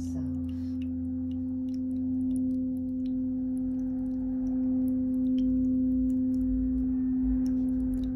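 A steady, held pure tone, a meditation drone, with a fainter tone an octave above it and a low hum beneath.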